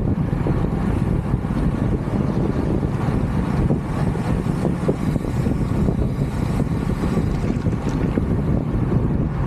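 Wind buffeting the microphone during a ride: a steady, fluttering low rumble.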